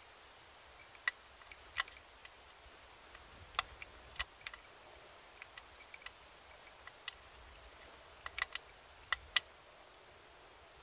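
Small screwdriver clicking and scraping against the tiny screws and metal breaker plate inside a MerCruiser 3.0 L distributor as the points and condenser are worked loose: light, irregular metal clicks, about a dozen, some in quick pairs.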